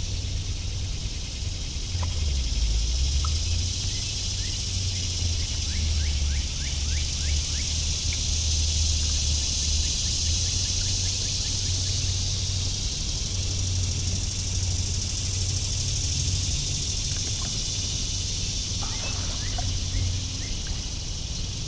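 Outdoor ambience on a lake in summer: a steady high-pitched insect drone over a low rumble, with a few faint short bird chirps a few seconds in and again near the end.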